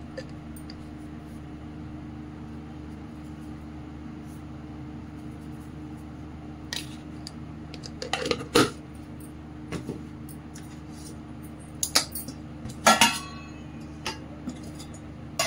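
A steel spoon clinks a handful of times against a stainless-steel mixing bowl, with the loudest clinks about thirteen seconds in, over a steady low hum.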